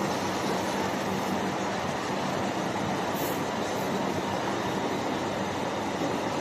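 Rock-and-roll rotational moulding machine running, a steady, even mechanical rumble as it rocks and turns the mould during heating.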